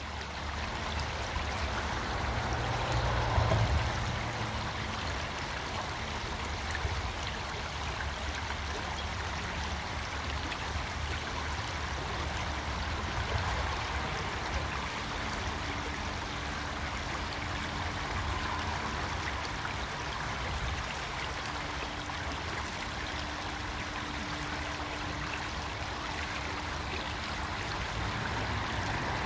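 Creek water flowing steadily.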